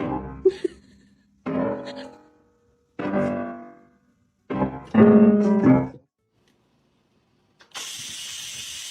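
Piano playing four separate chords about a second and a half apart, each fading away, the last one loudest and longest. After a short silence, a steady hiss starts near the end.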